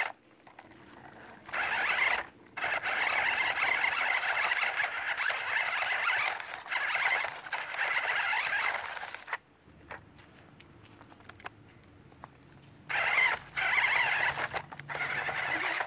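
Electric motor and gearbox of a Cheetah King 1:16-scale RC rock crawler whining as it drives. The whine starts and stops several times, with a pause of a few seconds past the middle.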